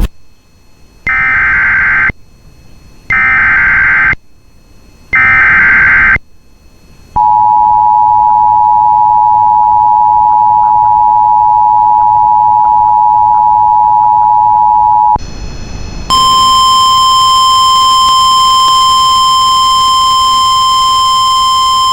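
Emergency Alert System tones announcing a severe weather warning. Three one-second bursts of SAME header data come about a second apart, then the two-tone attention signal holds steady for about eight seconds. After a short break, a single steady alert tone starts and keeps sounding.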